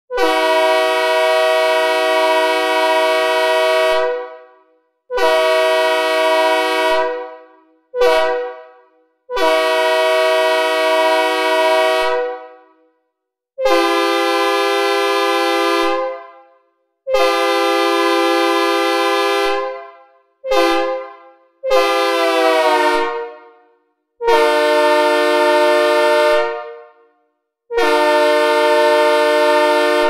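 Synthesizer recreation of a Leslie S3K five-chime locomotive air horn, sounding a chord of several notes in a series of about ten blasts, mostly long with a few short ones, each fading away with a reverberant tail. One blast about two-thirds of the way through sags in pitch as it dies.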